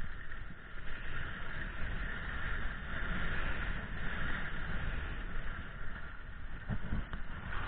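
Skis sliding and scraping over groomed, packed snow during a downhill run, a steady hiss with wind buffeting the microphone as a low rumble.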